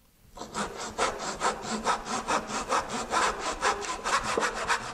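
Hand backsaw crosscutting a small piece of wood at 45 degrees, in quick, even rasping strokes that begin about half a second in.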